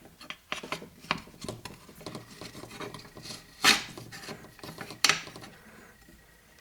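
Handling noises as a makeshift fence is set onto a mini table saw's top: scattered light clicks, knocks and scraping, with two sharper knocks past the middle.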